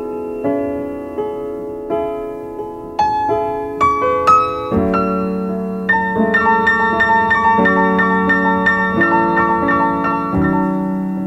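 Piano music. It starts with slow, separate chords and single notes, then about halfway through settles into a steady run of repeated higher notes over held low notes.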